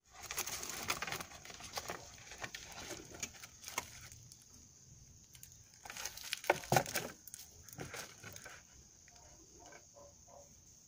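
A cat rummaging in a clear plastic storage box set on crumpled foil and plastic wrappers: irregular rustling and crinkling with light knocks against the plastic. It is busiest in the first four seconds, and the sharpest knocks come around six to seven seconds in.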